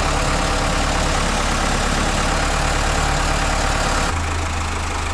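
Rough-terrain telescopic forklift's engine running steadily, heard from the work basket up on its boom. The engine note changes about four seconds in.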